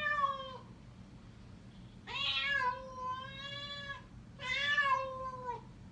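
A cat meowing three times in long, drawn-out calls, the middle one the longest.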